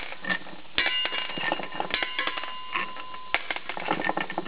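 Light clicks and clinks of metal engine parts being handled and moved around a disassembled crankcase cover. A steady high tone sounds in the background from about a second in until past three seconds.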